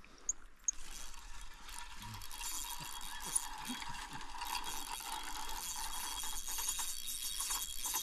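Fishing reel being cranked steadily, its gears whirring with a fine ticking texture, starting about a second in: line being reeled in after a bite took the float under. Two short high bird chirps come just before the cranking starts.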